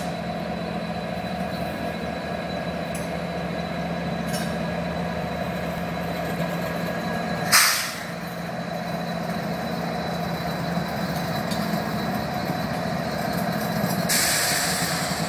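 Diesel freight locomotives passing close by: a steady low engine drone over wheel and rail noise. A sharp, loud burst comes about 7.5 seconds in, and a louder hiss rises near the end as the locomotive gives way to the boxcars.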